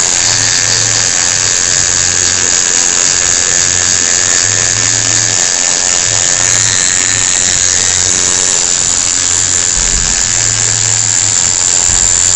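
Coil tattoo machine buzzing steadily as the needle works into the skin of a leg, with a low hum that drops in and out.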